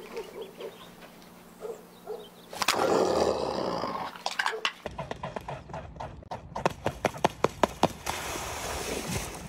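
Mute swan running across water with its wings spread: a fast run of sharp slaps from feet and wings hitting the water, about four or five a second from about halfway in and loudest near the end, then a rush of splashing. Earlier there is a brief louder burst of noise about three seconds in.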